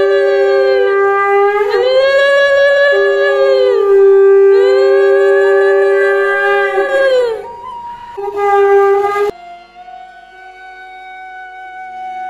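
Conch shell (shankha) blown for the puja in three long blasts, each a held note whose pitch swells up and falls back, then a short fourth blast. It cuts off suddenly about nine seconds in, leaving quieter music.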